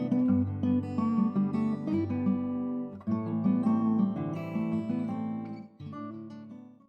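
Background music: a plucked and strummed acoustic guitar tune that fades out near the end.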